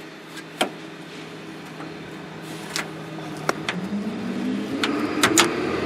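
A handful of sharp clicks and knocks as the new door lock cylinder is slid back into the truck door. Under them a steady vehicle engine hum rises in pitch over the last two seconds.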